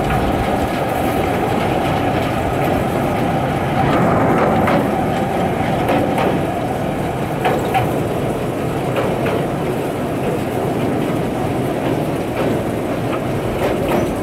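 Open-air tourist rail cart running along the track: a steady rumble of its motor and wheels on the rails, with a few faint clicks from the track.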